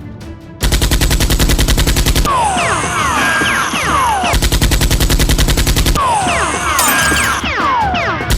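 Dubbed machine-gun sound effects: loud bursts of very rapid automatic fire lasting about two seconds each, three times, with short falling whistles between the bursts, over background music.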